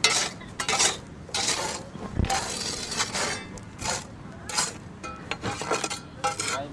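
A series of rough rubbing and scraping strokes, about ten of them at an uneven pace.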